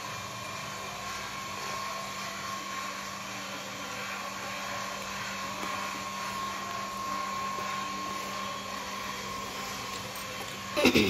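A steady machine whir, like a small electric motor running, with a faint steady whine and a low hum. Just before the end a short, loud sound drops sharply in pitch.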